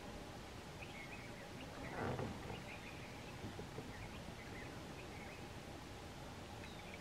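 Quiet outdoor ambience with scattered faint bird chirps. A brief, louder muffled noise comes about two seconds in.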